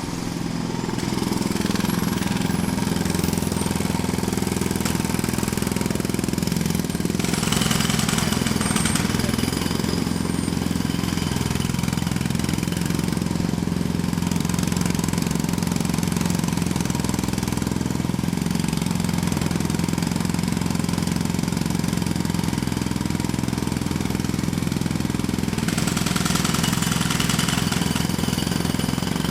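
Jackhammer hammering continuously at close range, a rapid, unbroken run of blows. It turns brighter and sharper twice: about a quarter of the way in, and again near the end.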